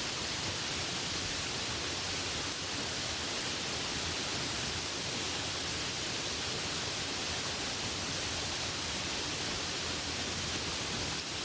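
Delicate rain falling steadily, a constant even hiss.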